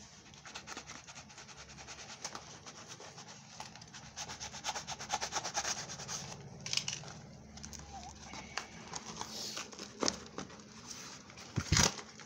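Plastic wrapping and a cardboard box being handled and torn open: a fast crackling and crinkling for the first half, then scattered rustles and scrapes, and a loud knock near the end.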